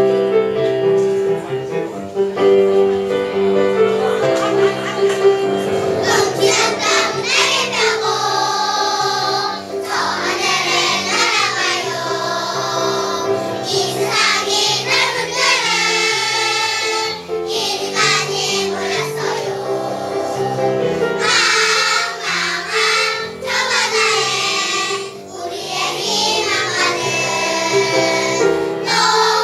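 Children's choir singing a song with instrumental accompaniment; the accompaniment plays alone at first and the children's voices come in about six seconds in.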